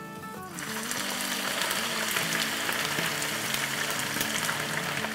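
Parboiled onion slices deep-frying in very hot oil: a dense, steady sizzle that starts about half a second in, over soft background music.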